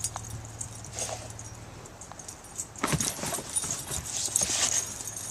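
Dogs scuffling as they play together in the snow, with louder bouts of scuffling about three seconds in and again around four and a half seconds.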